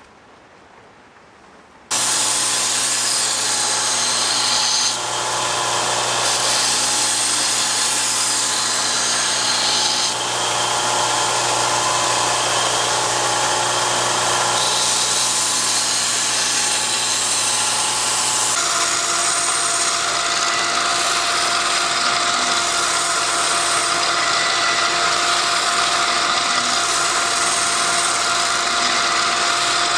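An electric power tool starts abruptly about two seconds in and runs steadily with a motor hum, its sound changing a few times as it works.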